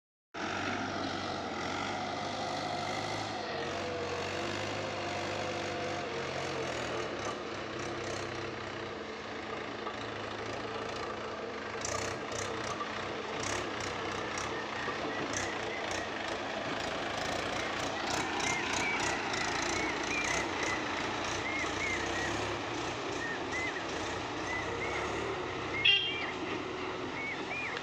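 Farm tractor's diesel engine and a Hitachi excavator running steadily under load as the tractor hauls its trailer through mud and the excavator digs. A single sharp clank near the end.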